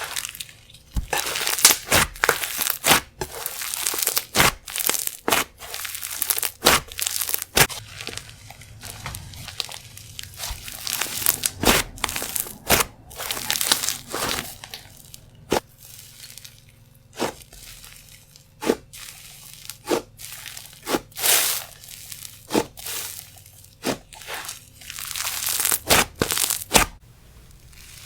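Clay slime being pressed and played with by hand, giving a long run of sharp, irregular crackling clicks and pops, some coming in quick bunches.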